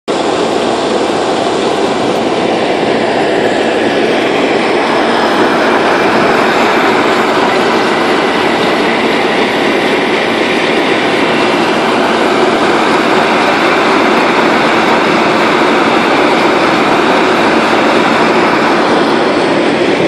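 Heavy asphalt paving machinery running: a loud, steady engine and machine noise that holds without a break.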